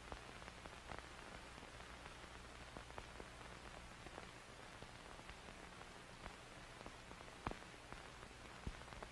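Faint static hiss with a low hum, broken by scattered crackling clicks, two of them louder near the end.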